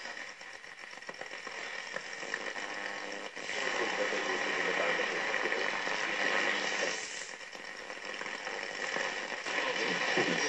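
Static and hiss from a VEF Spidola 230-1 transistor radio's speaker as it is tuned between stations, with faint, garbled traces of broadcast under the noise. The noise changes character briefly about three seconds in and again about seven seconds in.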